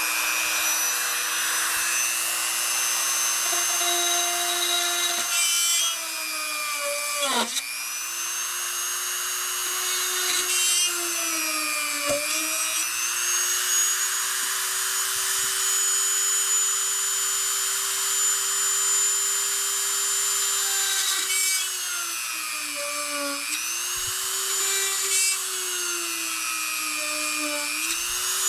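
Handheld rotary tool running continuously while drilling holes through a fiberglass bulkhead, its steady high whine sagging in pitch and recovering several times as the bit loads up, most deeply about a third of the way in.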